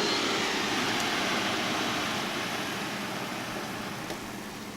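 Ninja Foodi air-fryer fan blowing hot air: a steady whoosh that fades away over a few seconds as the fan winds down.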